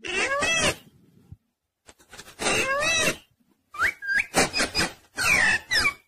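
Ring-necked parrot calling: about five short pitched calls, the first two long and rising-then-falling, the later ones quicker, higher and sharper, with brief pauses between.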